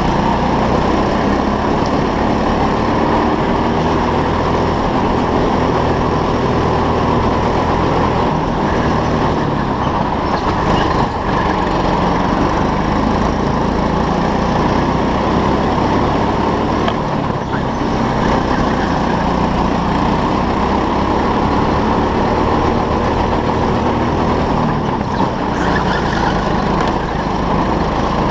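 Go-kart engine running hard on a lap, its pitch rising and falling as the kart slows for corners and accelerates out of them.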